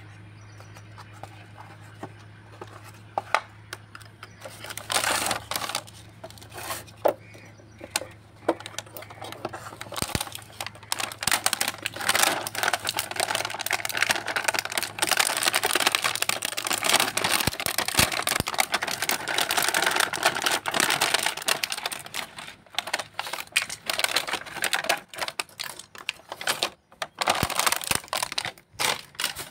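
Clear plastic packaging bag crinkling and rustling as it is handled and opened, mixed with many sharp clicks and clacks of small plastic toy pieces. The crinkling is densest through the middle, and the clicks grow sparser near the end.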